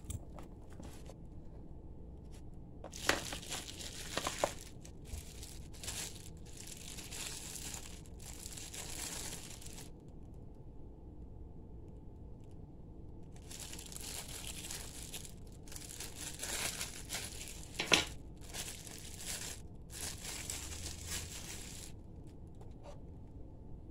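Plastic wrapping crinkling and rustling in fits and starts as the lunch box is handled, with a lull in the middle and a couple of sharp clicks.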